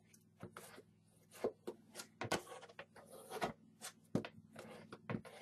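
Hands pressing a chipboard box down onto a card base: irregular soft taps, knocks and rustles of board and card being pressed and smoothed.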